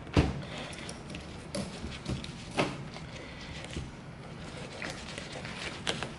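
Becker BK7 fixed-blade knife cutting and scraping at a tilapia fillet on newspaper, with paper rustling and a few sharp knocks of the blade and hand against the table, the loudest just after the start and another about two and a half seconds in.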